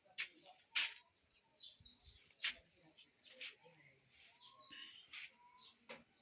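Birds chirping in short calls, broken by about six sharp clicks or knocks, which are the loudest sounds.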